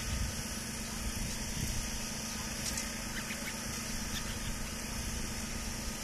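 Steady low engine-like rumble under a constant high hiss, with no clear bird call.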